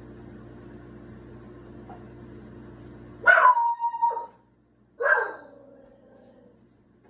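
A steady hum cuts off suddenly about three seconds in, followed by loud, sharp dog barks: a quick cluster with one held note, then a single bark a second later.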